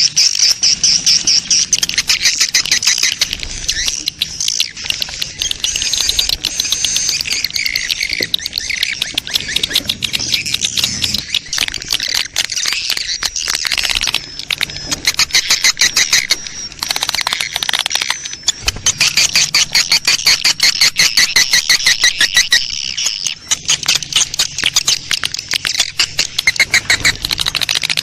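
Recorded edible-nest swiftlet colony call, a lure sound for swiftlet houses: many birds chirping and twittering at once in fast, buzzy, rattling trills that carry on with only brief lulls.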